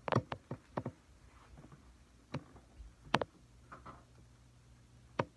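Handling and movement noises from a person getting up and moving things about: a quick run of clicks and knocks in the first second, then single sharp clicks every second or so.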